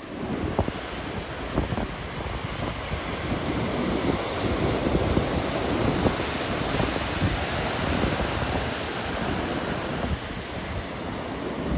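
Pacific surf breaking and washing over a rocky shore, a steady rush of white water, with gusts of wind rumbling on the microphone.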